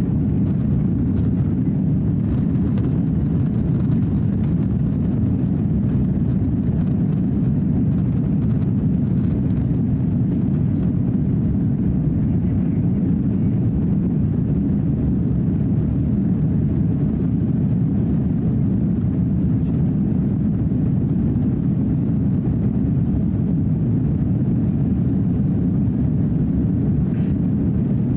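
Steady low roar inside the cabin of an Airbus A330-300 climbing after takeoff: its Rolls-Royce Trent 700 engines at climb power, together with airflow over the fuselage.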